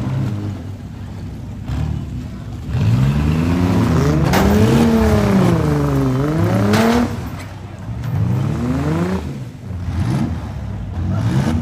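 Demolition derby minivan engines revving up and down as the vans accelerate and turn, with the longest, loudest rev about three seconds in and another rising rev near the end.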